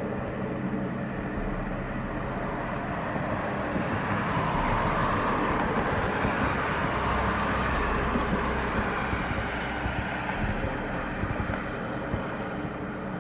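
Royal Navy Sea King Mk7 helicopter flying overhead, its rotor and engines making a steady rumbling drone. The drone grows louder a few seconds in and eases off again after the middle.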